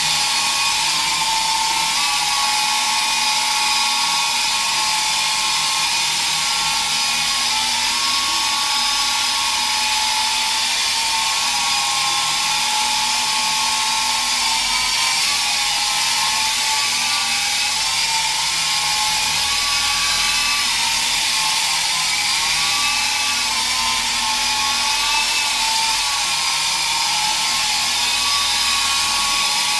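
Electric motors and rotor blades of a T-34 RC helicopter in hover, a steady high whine whose pitch wavers up and down as the throttle is worked.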